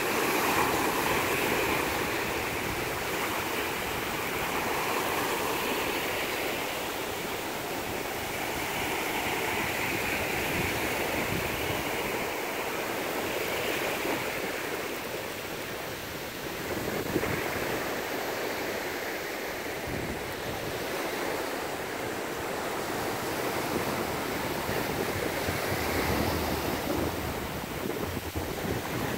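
Ocean surf breaking and washing up a sandy beach, a steady wash that swells and eases. Wind rumbles on the microphone underneath.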